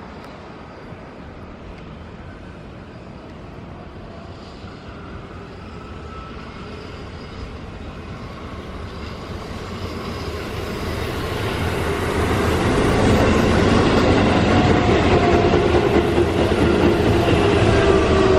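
Keihan electric train approaching along the platform, its rumble growing steadily louder for about twelve seconds, then staying loud with a whine of several tones that slowly falls in pitch near the end.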